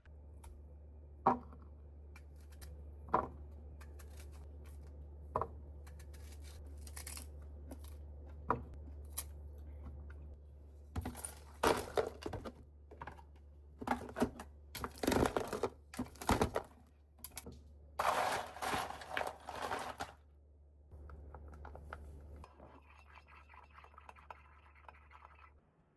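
Objects being handled: four sharp clicks or knocks in the first nine seconds, then a run of loud rustling and scraping bursts, then a fine steady rattle near the end, all over a steady low hum.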